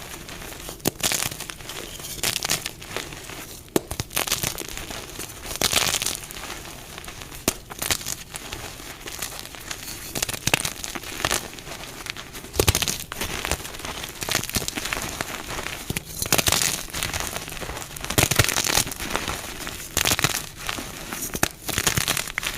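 Dyed blocks of gym chalk being crushed, crunching and crumbling in irregular bursts with an occasional sharp crack.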